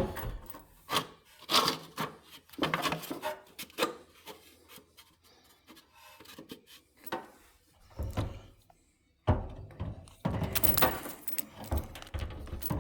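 A battery case scraping and knocking against a riding mower's battery tray as it is shoved and worked into place, in irregular rubs and bumps, busiest near the end.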